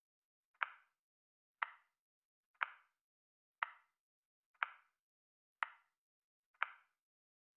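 Countdown timer ticking: one short, sharp tick every second, seven ticks in all.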